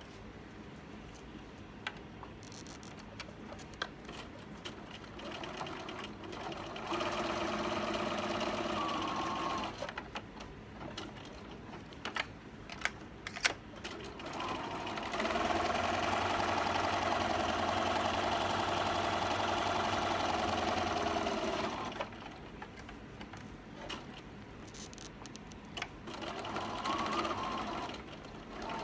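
Electric sewing machine stitching a seam through cotton fabric layers, run in short bursts: a run of about two seconds, then a longer steady run of about seven seconds, then a brief one near the end. Scattered clicks and fabric handling fill the pauses.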